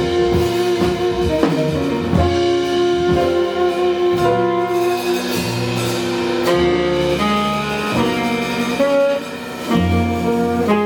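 Live jazz band playing, with saxophone over guitar, piano, bass and drum kit. Sustained held notes run through, with a brief drop in level about nine seconds in.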